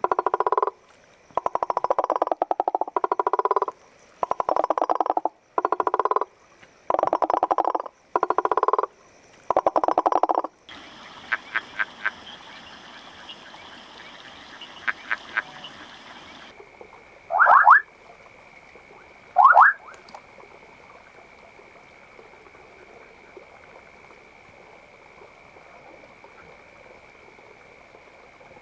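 Male frogs' mating calls, three kinds in turn: first a series of loud pulsed trills, each under a second long; then a Ugandan forest treefrog (Leptopelis) giving two short runs of clicks; then two quick upward-sweeping calls about two seconds apart over a steady high whine.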